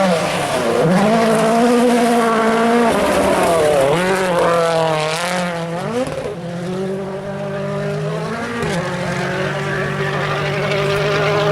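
Rally car engine revving hard, its pitch climbing and falling again and again through gear changes, dropping sharply about halfway through, then holding a steadier note.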